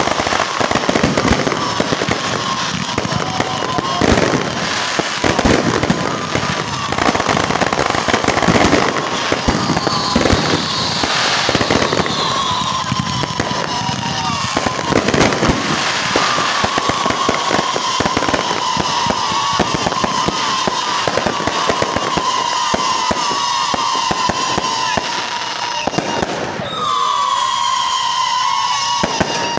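Fireworks finale: many aerial shells bursting in rapid, overlapping succession with crackling, over a steady high tone. The bursts thin out near the end.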